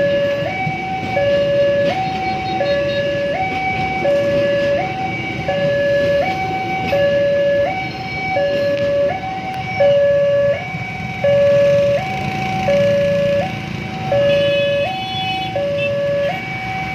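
Railway level crossing warning alarm sounding its steady two-tone signal, a high and a low tone alternating about every 0.7 s. Under it is the low rumble of a passenger train's cars passing over the crossing.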